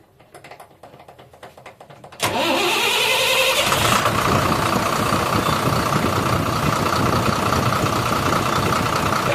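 The 12-M FE engine being checked for a knocking problem is started. Faint rapid clicking about two seconds in gives way to the engine catching with a sudden loud start and a brief rise in revs. It then settles into a steady run.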